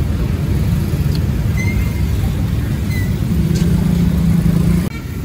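Street traffic rumble from passing motorbikes and cars, with one engine's hum standing out for a second or two near the end before the sound cuts off abruptly.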